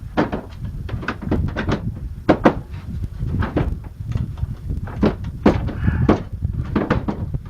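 A string of irregular knocks and thuds, hard and short with no ringing after them, over a steady low rumble.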